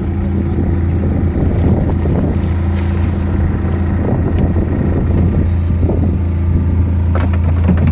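Fishing boat's engine running steadily with a low hum, with a few scattered knocks and splashes as a large cobia is gaffed and hauled aboard.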